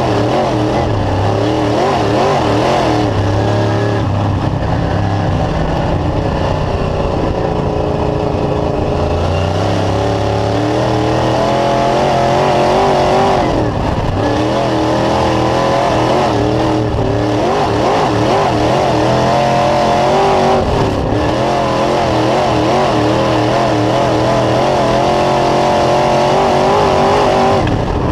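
Dirt late model's 602 crate V8 engine heard from inside the car at speed on a dirt oval, its note rising and falling over and over as the driver accelerates down the straights and lifts for the turns.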